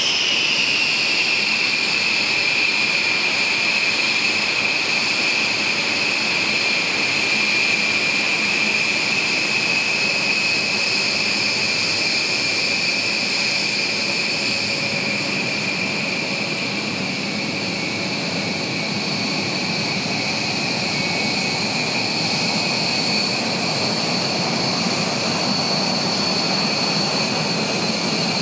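A B-1B Lancer's four General Electric F101 afterburning turbofans idling on the ground: a steady, high whine over a rushing hiss.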